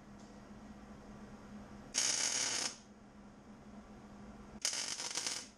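Two short MIG tack welds on a 3-inch exhaust pipe, each a crackling, hissing arc lasting under a second, the second about two and a half seconds after the first.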